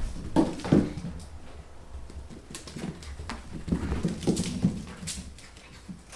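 Two cats chasing and wrestling, their paws giving quick irregular thuds and scuffles on carpet and wooden flooring.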